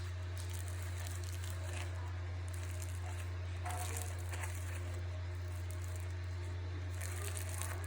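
Floam slime, slime packed with tiny foam beads, being squeezed and worked by hand: an irregular crinkly crackling from the beads, over a steady low hum.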